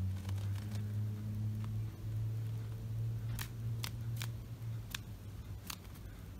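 A Java sparrow hopping on a wooden floor and slippers: about five sharp little taps of its feet from about halfway in, over a steady low hum.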